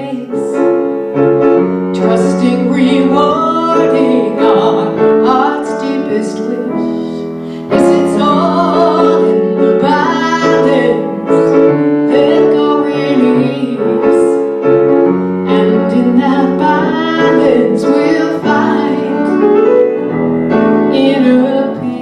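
A woman singing a slow pop ballad, accompanying herself on a grand piano.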